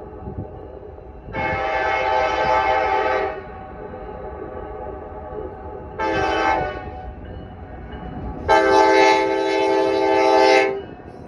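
Locomotive air horn sounding a several-note chord in three blasts: a long one, a short one, then a long one. Each blast rings on fainter as an echo after it stops.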